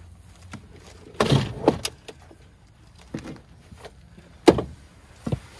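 Clanks and rattles of a landing net's metal handle being worked loose and popped out of the net inside a metal jon boat: a cluster of knocks about a second in, a few lighter ones, then the loudest single knock near the end.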